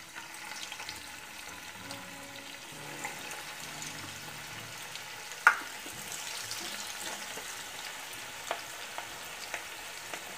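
Cabbage and gram-flour kofta batter frying in hot oil in a kadai: a steady sizzle with small crackles as pieces are dropped in by hand. A single sharp click about five and a half seconds in.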